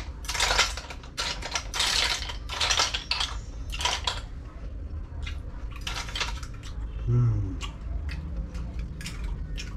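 Steamed snail shells clicking and clattering against a stainless steel bowl and a metal fork as the snails are picked through and the meat is prised out. The clatter is busiest in the first four seconds, then turns to sparser light clicks.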